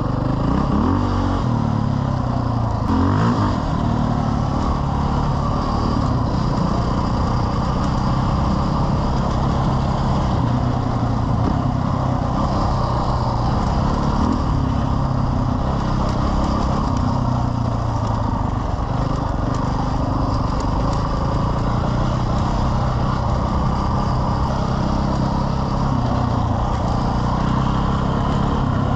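Motorcycle engine running steadily under way, with a couple of short revs in the first few seconds.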